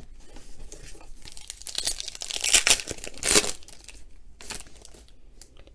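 Foil wrapper of a 2019 Panini Donruss Optic baseball card pack crinkling as it is handled and torn open, loudest near the middle.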